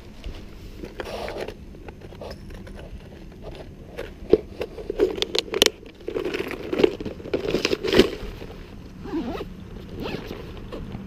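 Plastic tackle box being handled and shut, with rattles, scrapes and several sharp clicks in the middle. Near the end a backpack zipper is pulled closed.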